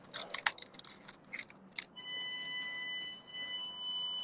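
Home security alarm system sounding a steady high-pitched electronic tone after its panic alarm has been triggered. It comes in about halfway through, after a run of sharp clicks and knocks.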